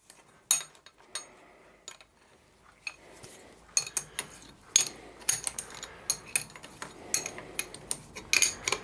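Sharp metal-on-metal clicks and clinks from a spanner on the T-bolt clamping nuts and hands working a steel machine vise; sparse at first, coming thick and fast from about halfway through.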